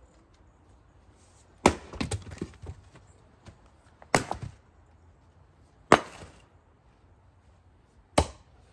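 Axe splitting firewood rounds on a chopping block: four sharp chops about two seconds apart, the first two followed by lighter knocks.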